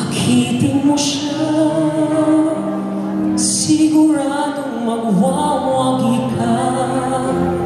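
Background music: a song with a singing voice over accompaniment, with long held notes.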